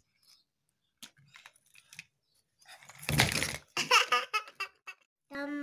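A toddler girl giggling and babbling, with a brief loud rush of noise about three seconds in; near the end she starts singing a held note.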